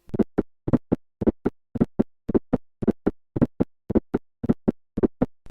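Heart sounds of an atrial (S4) gallop at a rapid heart rate: a fourth heart sound falls just before each first heart sound. Together with S1 and S2 it makes short thuds in a quick, repeating three-beat galloping rhythm.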